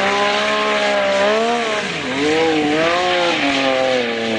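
Sport-bike engine held at high revs through a rear-tyre burnout, its pitch rising and dipping several times, with a hiss from the spinning tyre.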